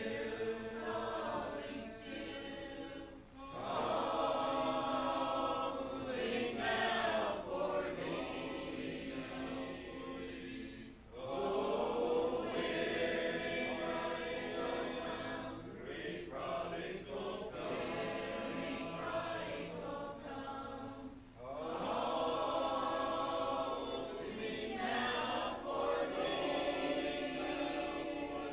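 A congregation singing a hymn together a cappella, in long sung lines with brief pauses for breath between them.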